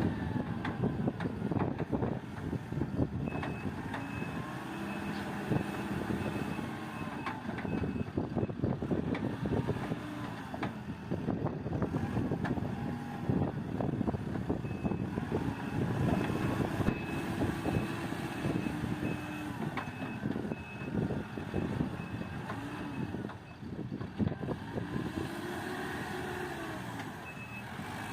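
JCB backhoe loader's diesel engine working under load, its pitch rising and falling with the revs, with many clanks from the machine at work. A reversing alarm beeps about twice a second in several stretches.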